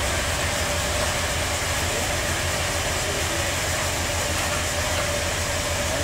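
Sawmill machinery running steadily: a continuous low engine-like hum with a faint steady tone above it.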